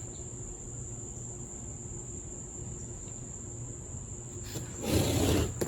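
Crickets chirping steadily in the background as one continuous high-pitched tone. A short, louder noise cuts in near the end.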